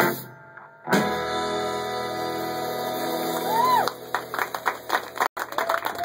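A swing band with guitar and upright bass ends a song on a last hit, then holds a final chord for about three seconds, with a short rising-and-falling whoop near its end. Clapping starts as the chord stops, about four seconds in.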